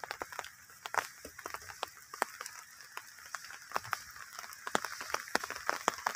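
Faint rural outdoor ambience: a steady high hiss with many scattered, irregular clicks and crackles.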